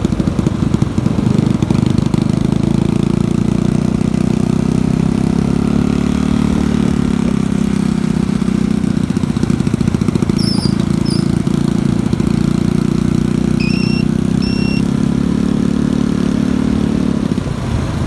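Motorcycle engine running steadily under way with wind noise, heard from on the bike. A few short high beeps sound around the middle.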